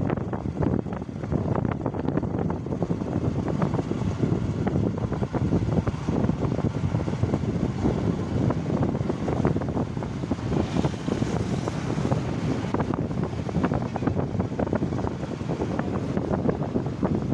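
Wind buffeting the microphone: a steady low rumble broken by many short irregular gusts.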